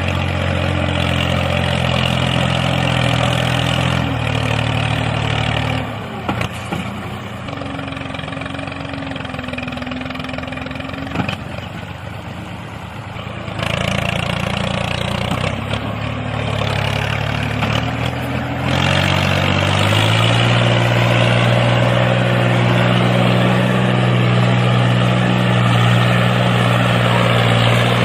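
Tractor engine running steadily. It drops quieter for several seconds partway through, then runs louder and steadier over the last eight seconds or so.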